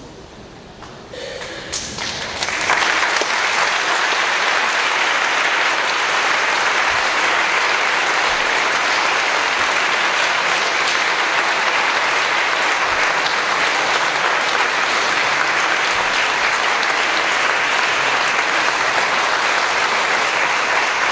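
Audience applauding. It begins faintly about a second in, swells within a couple of seconds, and then holds as steady, full applause.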